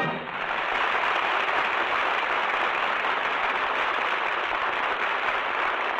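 Audience applauding, steady and even, right after the closing music stops. It is heard on an old 1950 radio broadcast recording whose top end is cut off.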